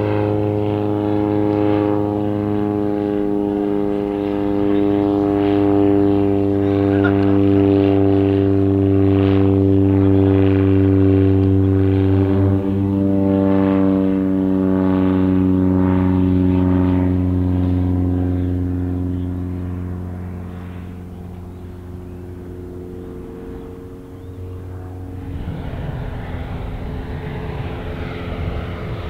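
Grob G109B motor glider's four-cylinder piston engine and propeller droning steadily in a flypast. The pitch sinks slowly as it passes and the sound fades. About 25 seconds in, a louder, higher-pitched engine note comes in as the aircraft heads back toward the listener.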